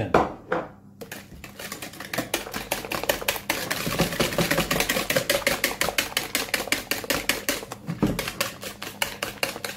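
Wire balloon whisk beating runny cake batter by hand in a plastic bowl: a fast, steady clicking of about six or seven strokes a second as the wires strike the bowl.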